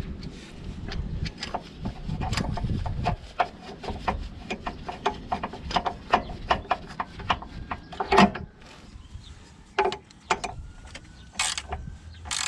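Irregular clicks and knocks of hand tools and parts being handled during engine-bay work, with one louder knock about eight seconds in.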